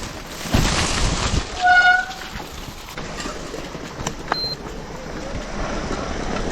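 E-bike ridden up a rough trail: uneven rattling and rolling noise, with a short high squeal about two seconds in and a sharp click about four seconds in.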